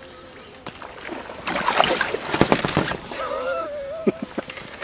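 Water splashing hard at the surface for about a second and a half: a snakehead striking a topwater frog lure.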